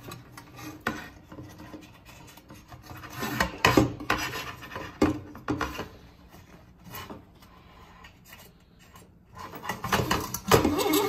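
Nylon webbing strap rubbing and sliding as it is threaded through a toothed tri-glide buckle on a harness backplate, in several short scrapes with quieter handling between them.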